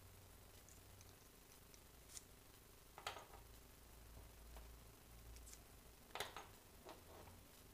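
Faint clicks and taps of small screws and mounts being handled and fitted together by hand. The sharpest clicks come about three seconds in and again a little past six seconds.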